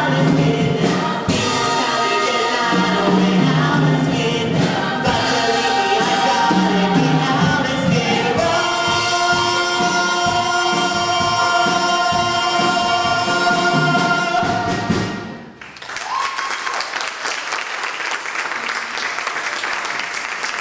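Stage cast singing in chorus, ending the number on a long held final chord that cuts off about fifteen seconds in. Audience applause follows straight after.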